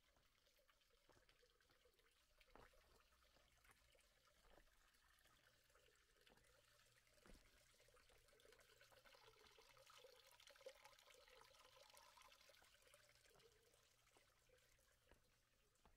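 Near silence: a faint trickle of water, swelling slightly a little past halfway, with a few soft taps.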